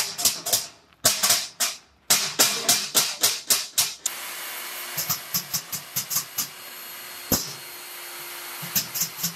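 Hand trowel scraping back and forth over wet foam concrete in a steel block mould, quick repeated strokes about four a second. About four seconds in, a steady hiss takes over, with fewer, spaced strokes and one sharp click.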